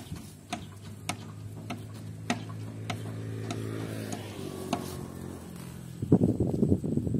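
Cow grazing on dry rice stubble: crisp tearing clicks about twice a second as it crops the stalks, over a low steady hum. A louder, noisy burst comes near the end.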